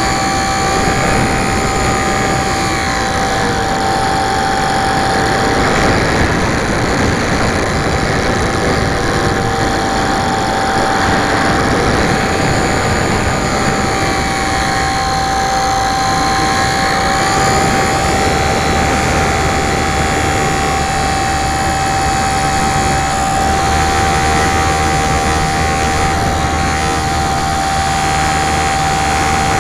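Motor and propeller of a Super Cub LP radio-control model plane running in flight, heard from a camera mounted on the plane, with wind rushing over the microphone. The motor's pitch slowly rises and falls with the throttle, over a constant high tone.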